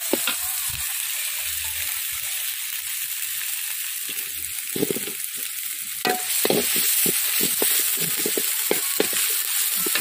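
Onion and ginger-garlic masala sizzling in hot oil in a metal kadai. A steel spoon scrapes and clinks against the pan as it is stirred, more often from about halfway through.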